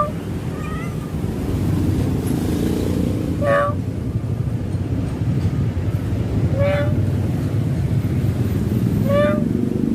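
Stray kitten meowing: three clear, short, high-pitched meows a few seconds apart, and a fainter one about a second in, over a steady low background rumble.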